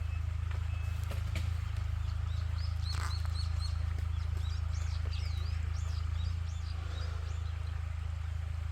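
Small birds chirping: a quick run of short rising chirps about three seconds in, then more looping, twittering calls a couple of seconds later, over a steady low rumble.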